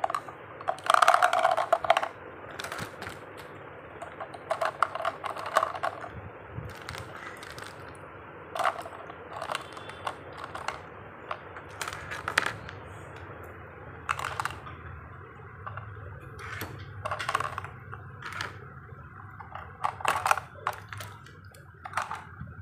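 Plastic marker pens, pens and scissors being put one by one into a paper pen holder on a tabletop: irregular clicks and clatters, with a louder clatter a second or two in.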